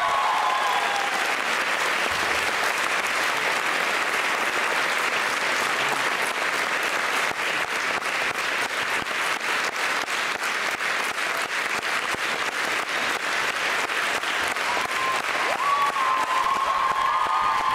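Audience applauding steadily with dense clapping. A few steady tones fade out in the first second and return about fifteen seconds in.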